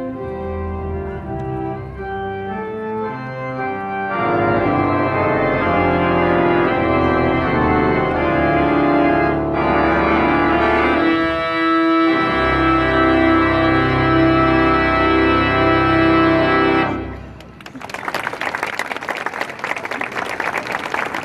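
Pipe organ playing sustained chords, growing louder about four seconds in. The music ends about seventeen seconds in and audience applause follows.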